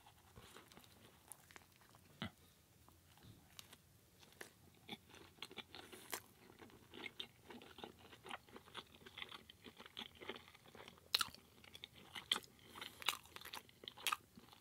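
Close-up chewing of a mouthful of curry burrito in a tortilla wrap: irregular wet mouth clicks and soft crunches, with a few louder ones in the last few seconds.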